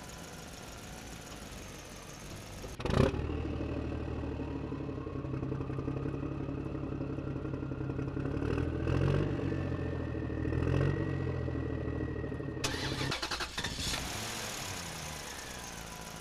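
Engine sound effect: a vehicle engine starts with a loud burst about three seconds in, then runs steadily with a couple of brief rises in speed. It cuts off suddenly near thirteen seconds and gives way to a fainter, falling engine-like hum.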